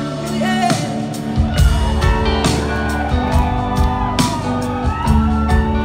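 Live band music in a gap between sung lines: an electric guitar plays a bending lead line over bass and drums.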